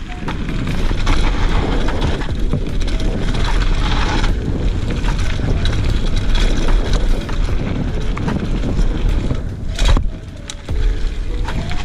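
Fuji Addy 1.5 mountain bike descending a dirt singletrack at speed: wind buffeting the GoPro's microphone over tyre rumble and the rattle of the bike over the rough trail. A sharp clack about ten seconds in, then a brief lull.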